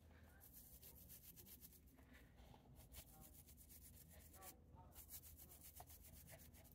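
Faint scratchy rubbing of toothbrush bristles working through a small conifer's foliage, brushing out dead needles.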